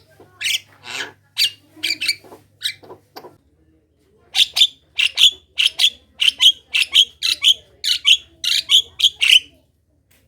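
Javan myna chattering: a few scattered harsh calls, a short pause, then a fast run of sharp repeated calls at about three a second that stops just before the end.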